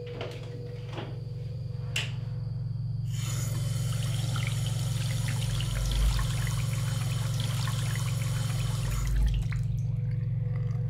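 Bathroom faucet running into a vessel sink while hands are washed under it. The water starts about three seconds in and cuts off a little after nine seconds, over a low steady hum.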